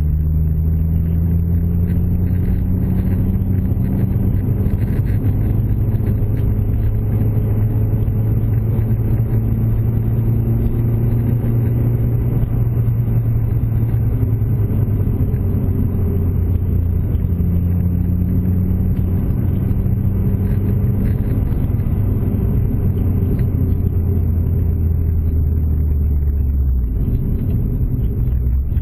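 Car engine running with tyre and road noise, heard inside the cabin at a steady cruise. The engine note shifts in pitch a few times as the revs change.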